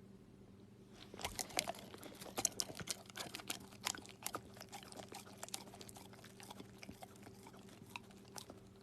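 A dog chewing: a rapid, irregular run of crunching clicks starting about a second in, thickest over the next few seconds and thinning out towards the end.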